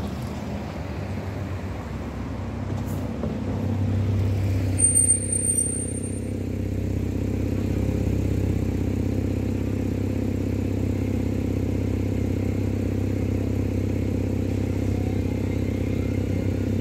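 Steady low hum of a stationary tram's electrical equipment, setting in about four seconds in, with a brief high squeak just after.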